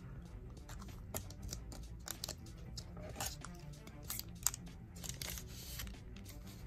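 Foil booster pack for the Dragon Ball Super Card Game crinkling in the hand and being torn open, with the cards pulled out: a string of sharp crackles.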